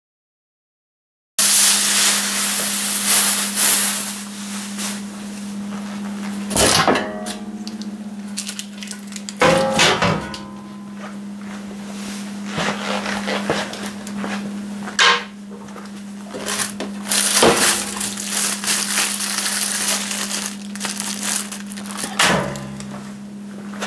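Clear plastic sheeting crinkling and rustling as it is pulled off a mini lathe in a plywood crate, with several knocks and thumps of handling the crate and its contents, over a steady low hum.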